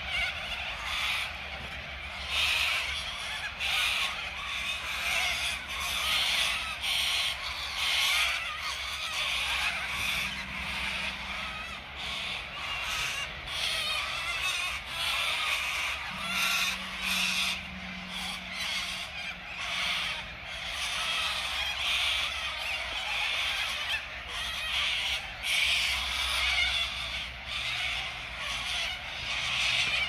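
A large flock of corellas screeching and squawking without a break, many harsh calls overlapping.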